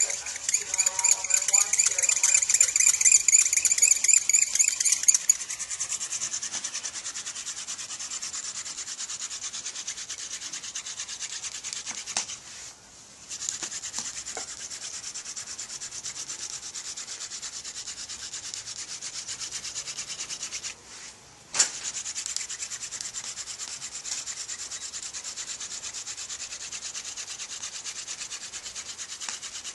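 Hand-drill friction fire: a Dame's Rocket flower-stalk spindle spun between the palms, grinding in the notch of a white pine root hearth board with a fast rhythmic rubbing hiss. It is loudest and shrillest for the first five seconds, and it breaks off briefly twice, about halfway and about two-thirds through.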